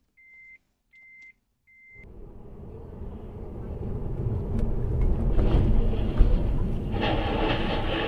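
Electronic warning beeps, a steady high tone repeating about one and a half times a second, three of them. Then the rumble of a car on the road heard from inside the cabin, building to loud, with a harsher hiss joining about seven seconds in as the car slows.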